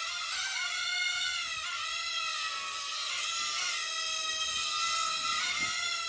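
Small toy hover drone's tiny propellers running, a high whine that wavers up and down in pitch as it hovers and adjusts its height.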